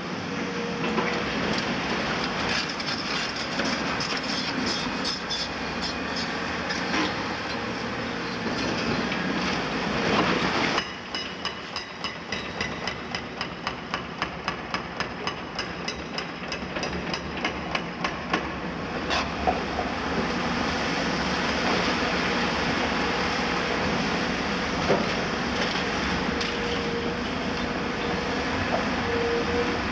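Caterpillar demolition excavators working on concrete rubble: diesel engines and hydraulics running steadily, with concrete crunching and grinding. For several seconds in the middle there is a regular clanking about twice a second, typical of steel tracks as the near excavator moves to a new spot.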